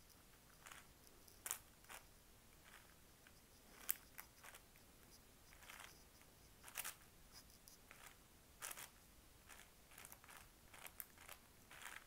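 A 6x6 Rubik's cube's plastic layers being turned by hand through a long algorithm: faint clicks and swishes at uneven intervals, about one or two a second, with a few louder clacks.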